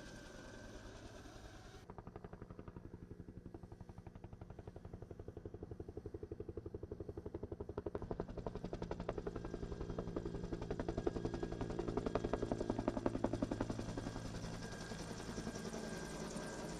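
Helicopter rotor thudding in a fast, even beat that grows louder toward the middle and eases off near the end as it passes.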